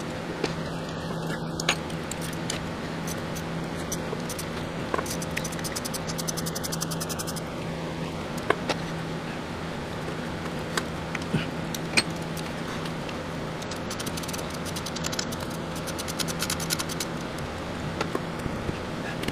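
Hand ratchet clicking in quick runs of even ticks as the valve body cover bolts are backed out of a 1998 Saturn SL1's automatic transmission, with scattered sharp metal clinks from the tool and bolts. A steady low hum sits underneath.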